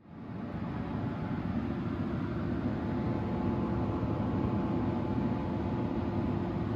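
Steady rumble and hiss of a laminar flow hood's blower running, fading in over about the first second and then holding even.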